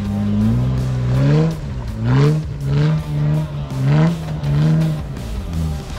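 Jeep Wrangler engine revving in repeated throttle blips while crawling up rock ledges, its pitch rising and falling about every half second.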